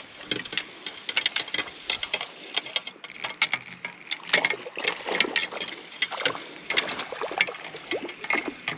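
Fishing reel being cranked to take in line, a fast run of small mechanical clicks and whirring that goes on throughout.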